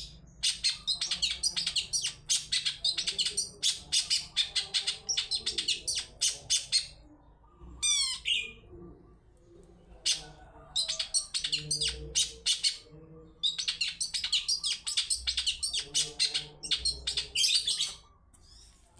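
Long-tailed shrike (cendet) singing a fast, chattering song of rapid high notes in long runs broken by short pauses, with a brief series of sweeping whistles about eight seconds in. It is a lure song meant to prompt other shrikes to call back.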